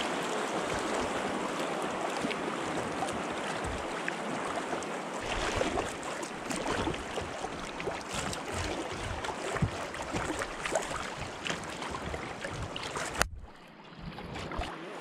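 Rushing water of a shallow river riffle around a kayak's hull, with scattered splashes and small knocks. It cuts off abruptly near the end to a much quieter hush.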